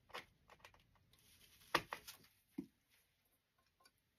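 Hands working a dry grapevine wreath: light rustling and scattered small clicks, with one sharp snap a little under two seconds in and a softer knock about a second later.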